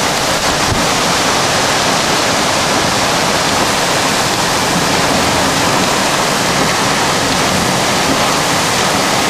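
Severe storm winds gusting to 90–110 km/h, a loud steady rushing noise.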